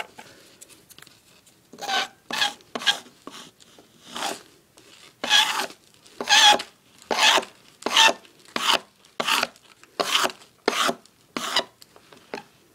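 Gritty firework powder being brushed across a wooden tabletop onto a sheet of paper: about fourteen short scraping strokes, starting about two seconds in and coming roughly once or twice a second.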